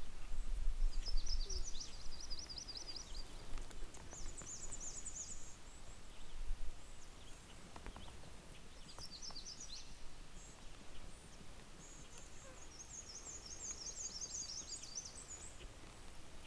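A small songbird singing high, quick trilled phrases, four times, over faint outdoor hiss. A low rumble in the first couple of seconds is the loudest sound.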